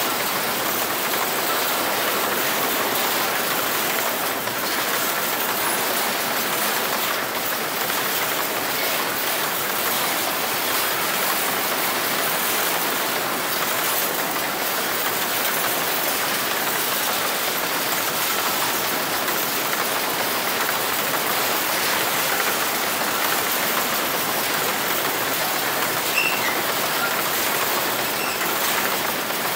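Empty grain hopper cars of a freight train rolling past, their steel wheels on the rails giving a steady hiss-like rolling noise.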